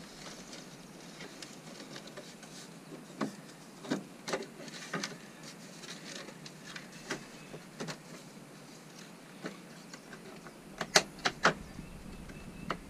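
Plastic car dashboard trim pieces being handled and pushed into place: scattered clicks and knocks, with a quick run of louder clicks near the end.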